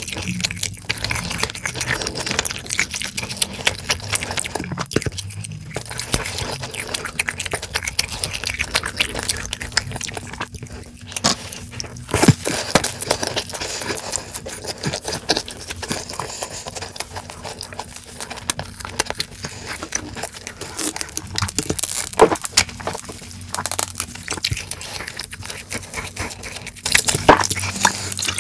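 Close-miked chewing and crunching of sauce-coated fried sweet-and-sour pork (tangsuyuk), a steady run of irregular wet clicks and crunches, with a few chopstick and bowl scrapes. Near the end come swigs from a plastic water bottle.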